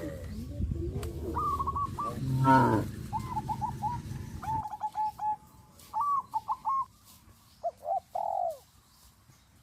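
Dove cooing in runs of short, quickly repeated notes, with a low rumble behind it that stops about four and a half seconds in, and one brief louder call about two and a half seconds in.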